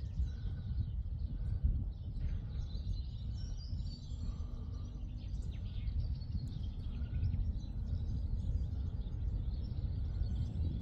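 Outdoor ambience of small birds chirping and singing over a steady low rumble.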